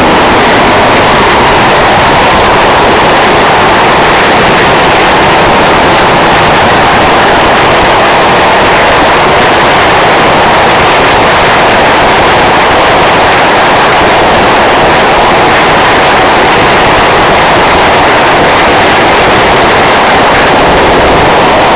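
A 100,000-shot string of firecrackers going off, the bangs so rapid that they merge into one loud, unbroken crackling din that stops at the very end.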